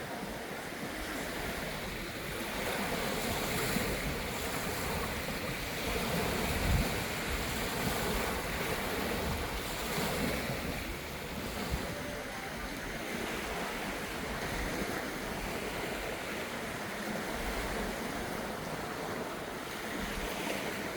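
Sea waves washing onto a beach in a steady wash that swells and eases every few seconds, with wind buffeting the microphone.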